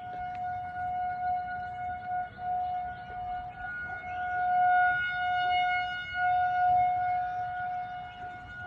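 Federal Signal 2001-SRN electromechanical rotating tornado siren sounding at full speed: a steady single tone that swells and fades in loudness.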